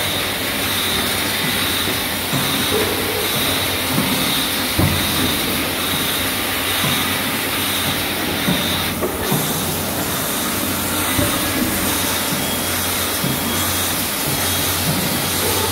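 Syringe assembly line running: automatic assembly machinery and vibratory parts feeders give a steady hum and hiss, with rapid, irregular light clicking and clattering of parts. A steady high whine cuts off about halfway through.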